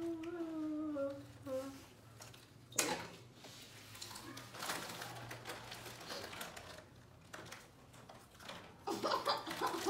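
A person's drawn-out hum, then a sharp crack about three seconds in, followed by soft crunching and rustling from snacks and their packets.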